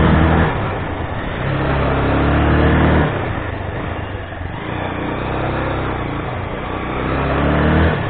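Motorcycle engine pulling in spurts on a steep, slow climb: it rises in pitch under throttle, drops back about half a second in, pulls again for a couple of seconds, eases off, and picks up once more near the end.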